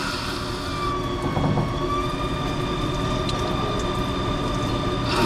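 CNC lathe turning a metal bar under flood coolant: a steady high whine from the spindle and cut over a spray-and-rumble noise, the pitch dipping slightly and recovering about a second in.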